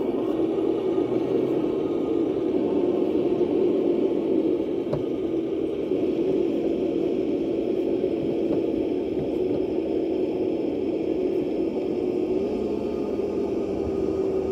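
Golf cart motor running steadily at low speed, heard from on board the cart: an even drone that rises slightly in pitch near the end.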